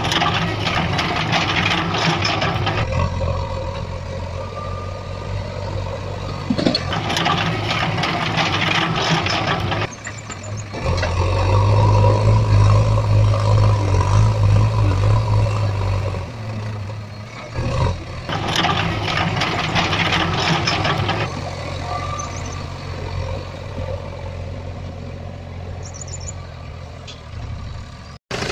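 Sand hissing and rattling as it pours from a plastic toy excavator bucket into a plastic toy dump truck, in three stretches of a few seconds each, over a steady low engine-like drone that grows louder for a few seconds in the middle.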